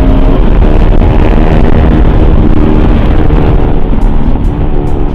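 Motorcycle engine running at riding speed under heavy wind rumble on the microphone, its engine note shifting pitch a few times.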